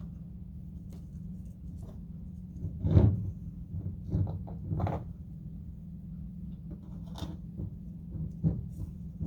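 Twine being handled while it is wrapped around a glass mason jar: a few soft knocks and rustles, the loudest about three seconds in, over a steady low hum.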